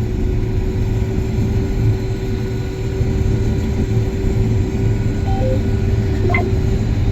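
John Deere S-Series combine running steadily under load while harvesting wheat, heard inside the cab: a low engine and threshing rumble with a steady hum. A couple of short beeps sound about five seconds in.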